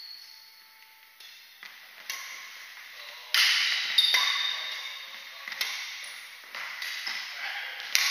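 Badminton rally: rackets hitting the shuttlecock back and forth, sharp hits about once a second that ring on in a large hall, the loudest about three and a half and four seconds in and another near the end.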